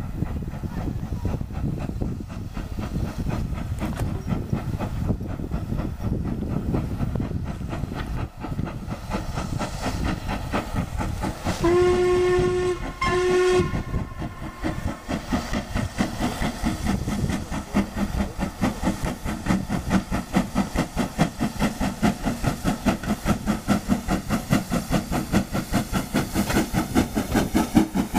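Stanier 8F 2-8-0 steam locomotive working hard with a train, its exhaust beats getting louder and more regular as it approaches and passes close by at the end. About halfway through it sounds its steam whistle twice, a long blast then a short one.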